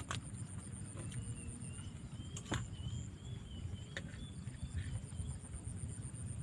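Outdoor ambience: a steady low rumble with a few sharp clicks, and a faint, high, wavering whistle through the middle.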